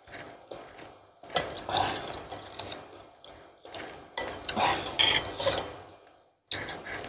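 Close-miked eating sounds: a person slurping and chewing spicy instant noodles with meatballs, in several short bursts separated by brief pauses.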